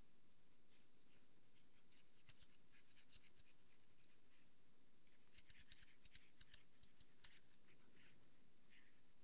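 Near silence with faint scratching and light ticks from a hand-moved pointing device as brush strokes are drawn. The ticks come in two spells, about one to three and a half seconds in and about five to nine seconds in.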